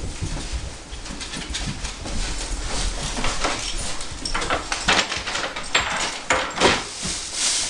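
A dog whimpering and whining in short bursts, more often in the second half.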